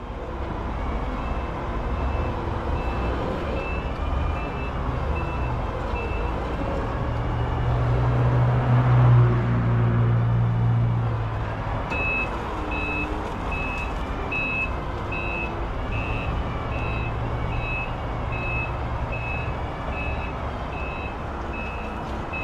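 Forklift working close by: its engine hums steadily and runs up louder in the middle, while its reversing alarm beeps about one and a half times a second for the first few seconds and again through the second half.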